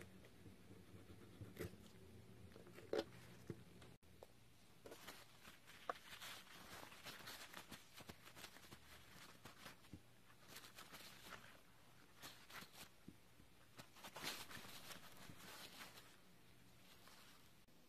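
Near silence with faint scattered clicks and brief rustling.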